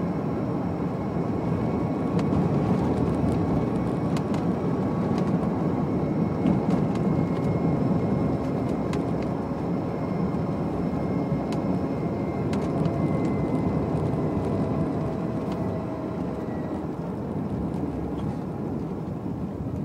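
Inside a 1992 Renault 9 converted to electric drive, climbing a sustained steep grade: steady road and wind noise with no engine note, a faint high whine that sinks a little in pitch in the second half, and scattered light ticks and rattles.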